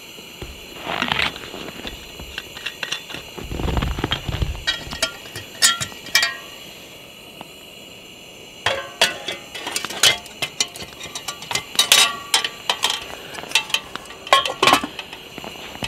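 Aluminium Swedish Army mess kit pot being handled and set onto a Trangia alcohol stove's windscreen: a string of light metal clinks, knocks and scrapes, thickest in the second half, with a dull low rumble about four seconds in.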